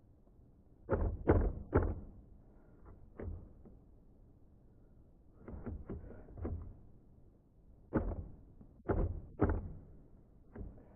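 Remington Noiseless No. 6 typewriter being typed on, its keystrokes landing as short dull strikes in small irregular bursts of two or three. The escapement is still skipping spaces, so the carriage double-spaces.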